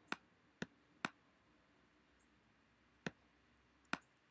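Faint, sharp computer mouse clicks, about five of them, made while selecting and dragging objects on screen. Three come in the first second, then a pause of about two seconds, then two more near the end.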